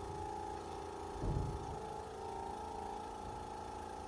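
Portable electric suction unit's pump running with a steady hum of several tones. A low bump comes about a second in.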